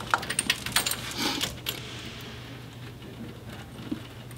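Light metallic clinks and rattles of bolts and steel brackets being handled as an electric power steering motor is fitted onto its mounting bracket, a quick flurry in the first second and a half, then one small click about four seconds in.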